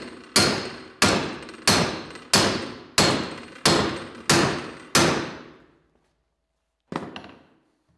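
Hammer blows on a steel angle clip welded to a pipe held in a vise, in a clip test of the weld's strength. Eight steady strikes come about one and a half per second, each ringing out, and a single last blow follows about two seconds later.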